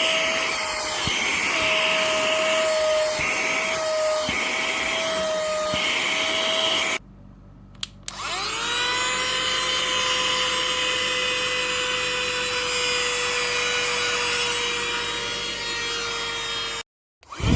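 Small cordless vacuum cleaner and air blower motor running with a steady high whine and a rushing airflow hiss that comes and goes. About 7 seconds in it switches off. A second later it spins back up at a lower pitch and runs steadily again, then cuts off just before the end.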